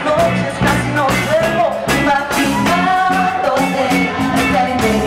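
Live band playing a funk-rock song: electric guitar, electric bass and drum kit with a steady beat, and a wavering melody line on top.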